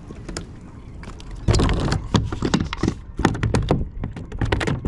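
A freshly landed spotted seatrout flopping in a kayak: a quick, irregular run of knocks and thumps that starts about one and a half seconds in.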